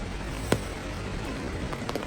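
Rushing water making a steady, even noise, with a sharp click about half a second in and fainter clicks near the end.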